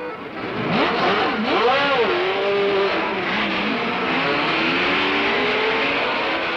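Sports-prototype racing cars (Porsche 917 and Ferrari 512) passing at full speed. From about a second in, the engine notes swoop up and down as the cars go by, then one engine note climbs steadily as it accelerates away.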